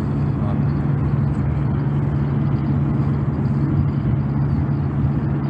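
A running engine or motor: a steady low hum under an even rushing noise.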